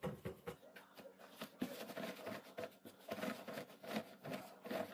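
Cotton tea towel rustling softly as a hand folds it over damp chickpeas and rubs them dry, in short, irregular strokes.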